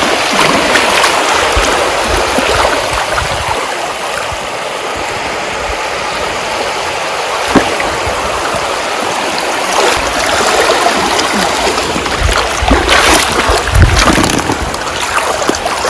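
Seawater washing and splashing, a steady rushing noise with scattered sharp splashes. Low thumps come near the end.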